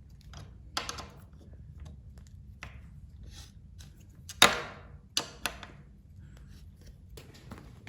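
Scattered clinks and knocks of hand tools on the motorcycle's saddle stay bolts during final tightening. The loudest knock is about halfway through.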